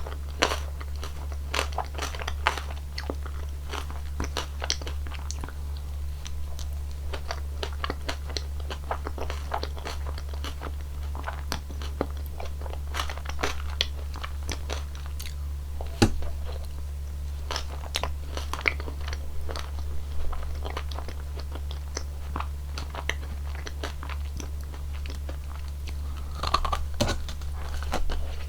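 Close-miked eating of cone ice cream: repeated crisp crunching bites and chewing, with one sharper crunch about halfway through. A steady low hum runs underneath.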